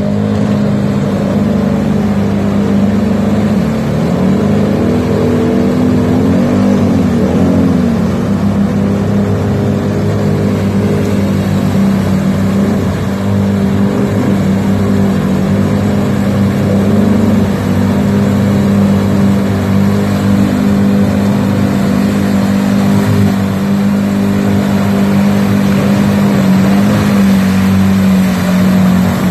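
Arctic Cat MudPro 700 ATV's single-cylinder engine pulling hard under load as it churns through deep mud and water, holding a steady note with a few rises and falls in revs, mostly in the first third.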